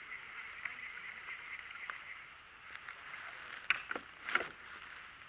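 Quiet water sounds around a kayak: small splashes and knocks of water against the hull, with two louder splashes close together about four seconds in.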